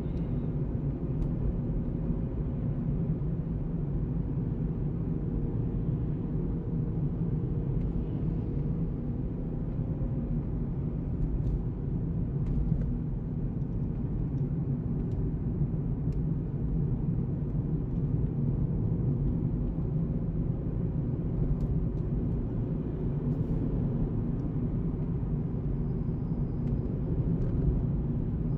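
A car cruising at highway speed: a steady low rumble of tyres on asphalt and engine.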